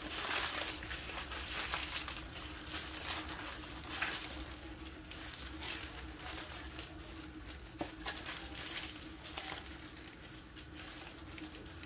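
Irregular rustling and crinkling from handling things, with scattered light clicks, over a steady faint hum.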